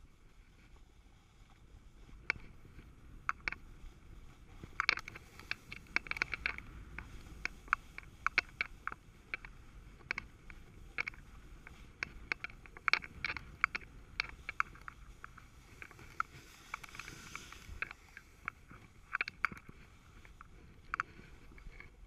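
Snowboard sliding down a groomed slope: a steady low rumble of the board running over the snow, broken by many sharp, irregular clicks and ticks through most of the run.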